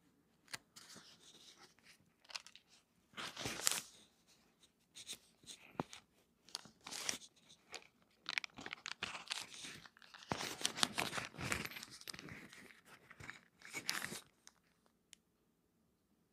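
Rustling and crinkling handling noises with small clicks and knocks, in uneven bursts, as a priest's hands move cloth, paper and small objects on an altar; they stop about 14 seconds in.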